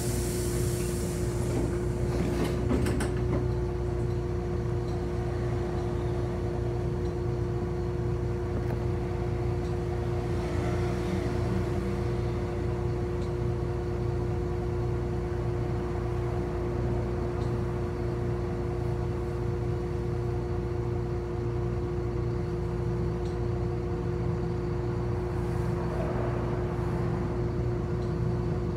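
City bus heard from inside the cabin: a steady running hum with a constant whine, with a few clicks in the first few seconds.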